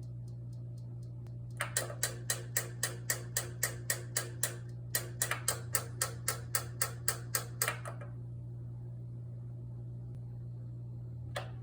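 Kenwood EW7507EK oil-filled radiator heater clicking rapidly, about four sharp clicks a second in two runs of about three seconds each, with a single click near the end, over a steady low hum. The clicking is the heater's fault symptom: it will not heat. The owner traced it to the thermal cutoff switch not making proper contact with the radiator.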